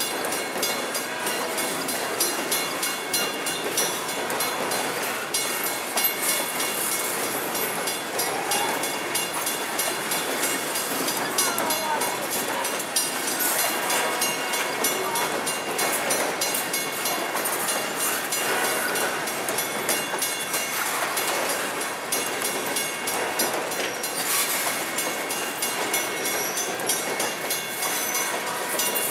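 Freight train of hopper cars rolling past: a steady rumble and clatter of steel wheels on the rails, with a few brief squeals now and then.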